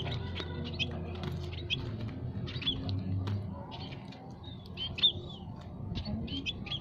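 Scaly-breasted munias and Java sparrows chirping without a break, many short high chirps several a second, with one louder call about five seconds in.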